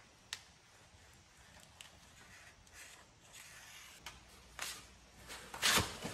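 A cardboard template being worked on a sheet of ABS plastic: a sharp click just after the start, faint scratching of a pen marking it out, and a louder rustling scrape near the end as the template is lifted.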